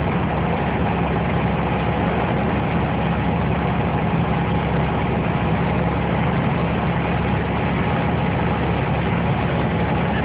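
Steady engine and road noise heard from inside a moving vehicle, with a low hum and no sudden cracks or booms.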